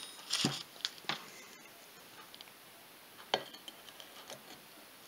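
A few light metal clinks and taps of a Polaris 350 two-stroke crankshaft with its oiled bearings being fitted into the crankcase half, bunched in the first second or so, then one sharp click a little past three seconds.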